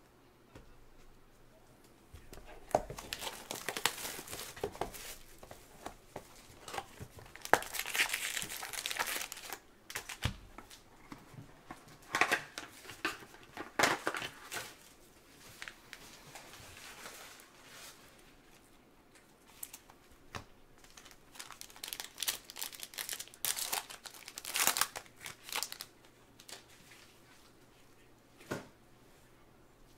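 A sealed box of football trading cards being torn open and its foil card packs handled and ripped open, the wrappers crinkling and tearing in several irregular bursts with sharp clicks between.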